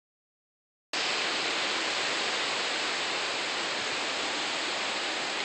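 Hurricane rain and wind: a steady, even hiss that starts abruptly about a second in.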